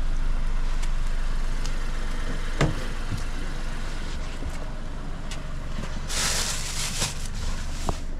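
A car's rear door is unlatched and swung open over a steady low engine hum, with a sharp click about two and a half seconds in and a short burst of hiss later on.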